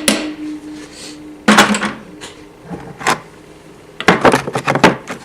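Sharp metal knocks of a hammer tapping a tool to bend back the tab of the lock washer on the clutch hub nut of a Suzuki GSF 400 Bandit engine. The first strike rings on for about a second and a half, a few more knocks follow, then a quick run of taps near the end.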